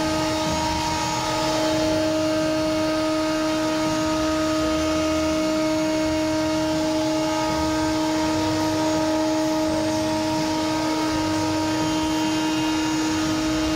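Steady machine hum from shop equipment: a constant drone with several fixed tones that does not change.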